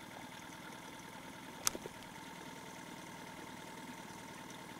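Faint steady hum of an idling outboard motor, with one sharp click about a second and a half in.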